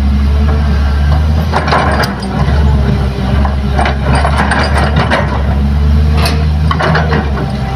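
Heavy diesel engines of a Kobelco excavator and a dump truck running steadily, with scattered clatters and knocks of soil and rock as the excavator bucket digs.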